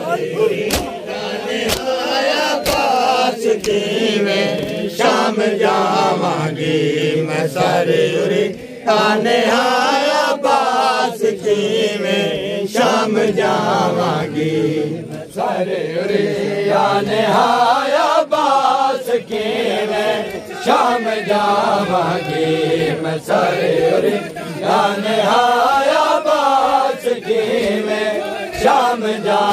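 A crowd of men chanting a noha in unison, a mourning refrain whose pitch rises and falls together, with sharp slaps of hands beating on chests (matam) cutting through it.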